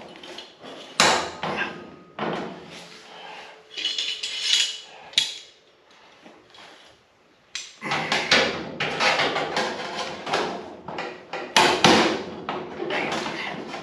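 Irregular metallic clanks, knocks and clatter of hand tools and metal parts being worked and handled, with a brief lull a little past halfway.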